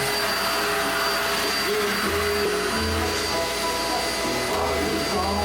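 Vacuum cleaner running steadily: a continuous rushing noise with a steady high whine.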